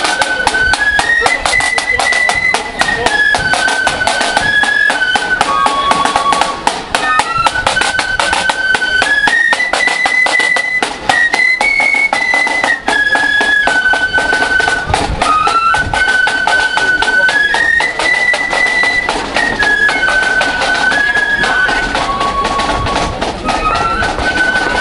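Marching flute band playing a tune in unison on flutes, with side drums beating steadily underneath; the melody repeats phrase after phrase.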